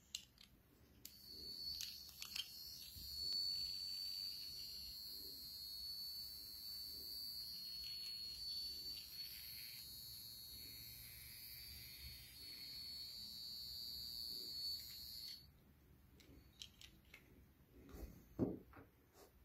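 Tiny electric motor of a Hot Wheels Sizzlers toy car running with its wheels spinning free in the air, a steady high-pitched whine that cuts off suddenly about fifteen seconds in. Small clicks and taps of the toy being handled come near the start and near the end.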